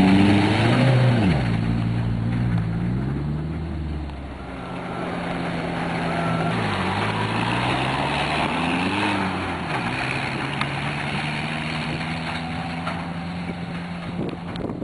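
BMS Ranch Pony 1000 UTV's engine running as it drives on a dirt trail, its pitch falling and rising a few times as it eases off and speeds up again, over the noise of tyres on dirt. It grows fainter towards the end as the vehicle moves away.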